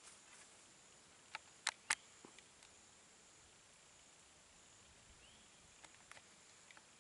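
Quiet evening woods with a steady high-pitched insect drone. Three sharp clicks come in quick succession about one and a half to two seconds in, with a few fainter ticks and a short rising chirp later on.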